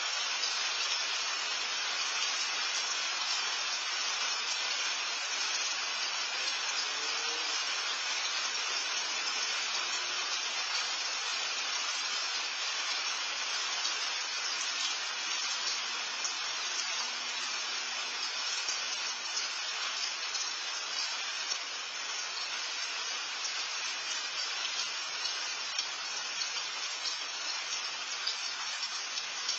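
Steady rain falling, an even hiss that holds without letting up.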